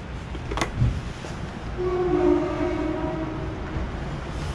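A sharp click, then a steady horn-like tone held for about two seconds, over a low, constant rumble of road traffic.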